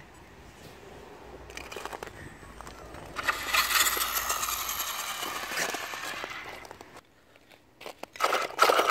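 Traxxas Rustler RC truck on homemade spiked tyres running over ice and snow: a loud rough scraping rush of the studs on the ice with the electric motor's whine, starting about three seconds in. It cuts off suddenly around seven seconds, and a steady whine starts up again near the end.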